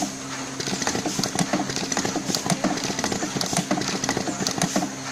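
Automatic wire seal-threading machine running: a steady hum with many quick, irregular clicks and clacks from its mechanism as seals are fed onto the wire ends.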